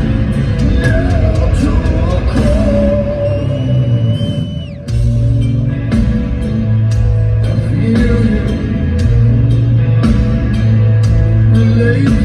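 Heavy metal band playing loud and live, heard from within the audience. A held high tone slides down and cuts off about five seconds in, then heavy distorted chords and drum strikes come back in.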